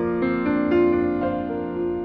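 Slow background music played on piano or keyboard: sustained notes, with a new note or chord coming in about every half second.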